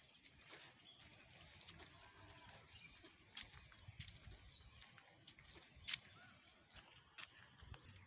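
Quiet outdoor ambience with a bird's thin whistle falling in pitch, heard three times. A single sharp click comes about six seconds in.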